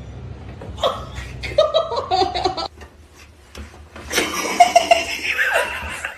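A person laughing in two bouts, the second louder and more breathy.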